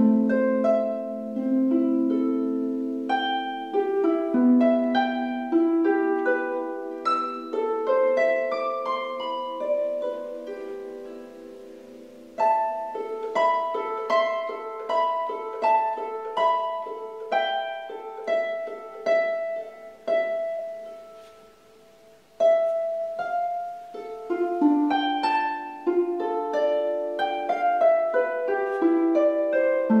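Solo concert harp playing: plucked notes ringing and overlapping in runs and chords. The playing thins out and fades twice, just before halfway and again about two-thirds through, each time coming back in strongly.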